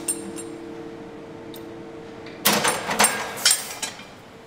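Metal clanking and rattling as fittings on a towed artillery gun are handled: a quick cluster of sharp knocks about two and a half seconds in, over a steady hum.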